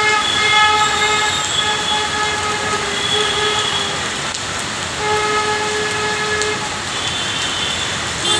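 Long, steady horn blasts: one of about four seconds, a shorter one about five seconds in, and a fainter one near the end. They sound over the continuous hiss of heavy rain.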